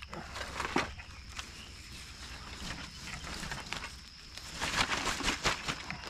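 Footsteps crunching and crackling through dry fallen leaves and twigs, with the loudest run of crunches about five seconds in.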